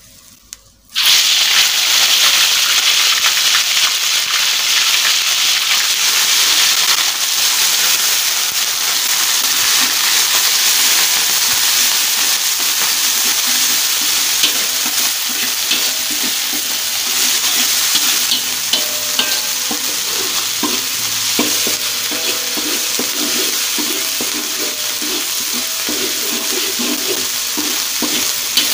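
Wet ground spice paste hitting hot oil in a metal wok and sizzling loudly, starting suddenly about a second in and frying steadily. A spatula stirs it, scraping against the wok more often in the second half.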